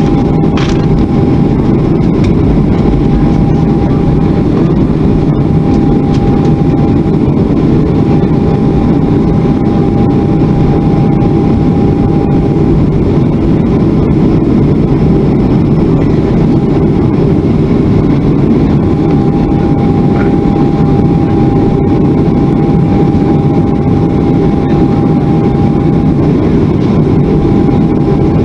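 Cabin noise of a Boeing 737-400 taxiing, its CFM56 turbofan engines running at low taxi power: a loud, steady rumble with a faint steady whine that fades in and out.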